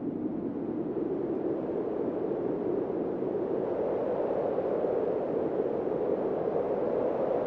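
Wind blowing across a field of ripe cereal: a steady low rush of noise that slowly grows louder and rises a little in pitch.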